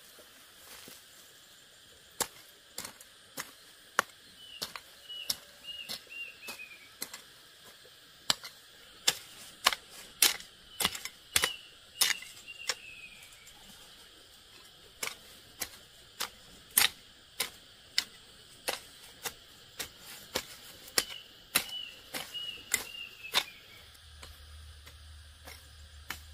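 Sharp clicks or snaps at irregular intervals, at times a couple a second. Between them a bird calls in short runs of three or four falling chirps.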